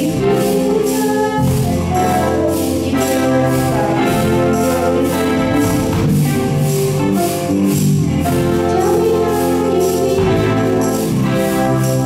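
Children's rock band playing live: a steady drumbeat with cymbals under sustained organ-like keyboard chords, bass and electric guitar, with a tambourine shaken along.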